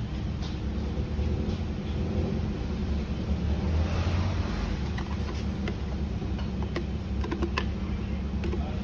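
Steady low hum, with liquid ice cream mix pouring into a stainless-steel machine hopper, then a few light clicks and knocks in the second half as a ladle scrapes the plastic jug.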